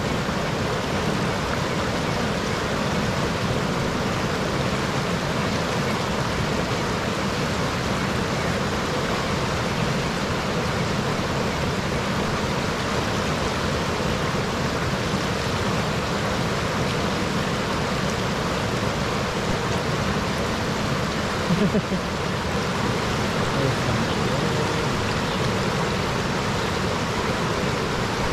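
Steady rush of flowing river water. A brief, louder sound stands out about three-quarters of the way through.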